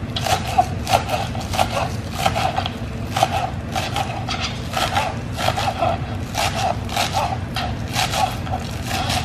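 A kitchen knife chopping green onions on a plastic cutting board: a quick, uneven run of blade taps against the board, a few a second.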